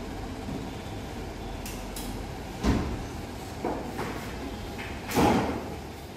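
A few knocks and clunks over a steady low background hum. The two loudest come about two and a half and five seconds in.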